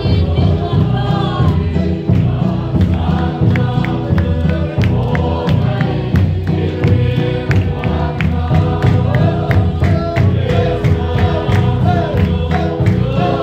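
A congregation singing a hymn together in chorus, with a large drum beating steadily about twice a second.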